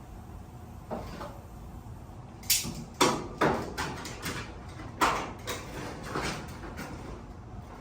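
A run of sharp knocks and clatters from a garage door being handled, the loudest about two and a half, three and five seconds in.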